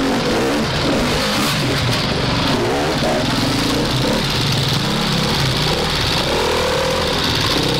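Enduro dirt bike engine revving unevenly as it is ridden up a steep, rocky step, its pitch rising and falling with bursts of throttle.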